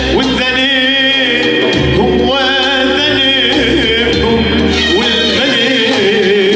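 Arabic song: a male singer's ornamented, wavering vocal line over electronic keyboard accompaniment with sustained chords and a low bass that changes note every second or two.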